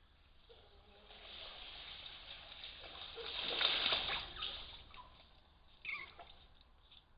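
Eurasian otters splashing as they haul out of the river onto the bank, the splashing building to a peak about halfway through and then dying away. A brief, sharp sound with a falling pitch comes about six seconds in.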